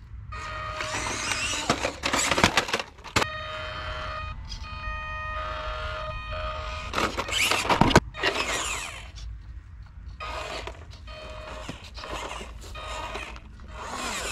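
A 1/18-scale Glacier RC crawler's small electric drivetrain whirring in bursts as it crawls up concrete and rough stone, with background music underneath.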